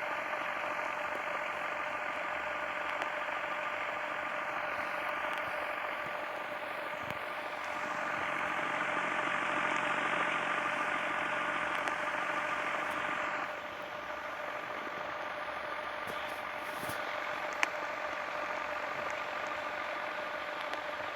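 Ceiling fan running at full speed: a steady electric motor hum with a whooshing whir. It grows louder for several seconds, then drops back abruptly about two-thirds of the way through. A single sharp click comes near the end.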